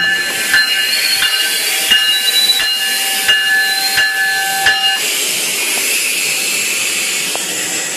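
GO Transit commuter train braking into the station: its brakes squeal in several steady tones over a loud high hiss, with regular clicks about every 0.7 seconds. The squeal and clicks stop about five seconds in as the train comes to a stand, and a steady hiss goes on.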